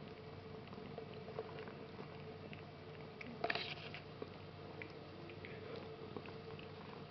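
Adult cat licking and grooming a four-week-old Savannah kitten: soft wet licking clicks and fur rustling, with a brief louder burst of noise about three and a half seconds in.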